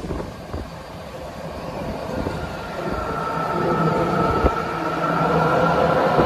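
BART Fleet of the Future train approaching through the subway tunnel, its rumble growing steadily louder. A steady high-pitched whine comes in about two seconds in and strengthens as the train nears.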